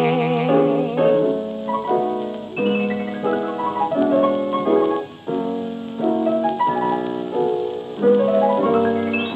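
Background music: piano playing repeated rising broken-chord figures.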